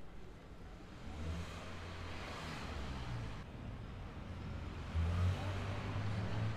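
Motor vehicle engine running close by: a low hum that comes in about a second in and gets louder near the end, with a hiss like a passing car in the middle.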